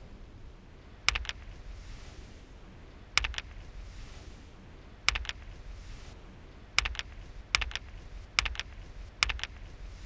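A series of sharp clicks, each a quick double tap. The first three come about two seconds apart, then they close up to about one every 0.8 seconds, over a faint steady hiss.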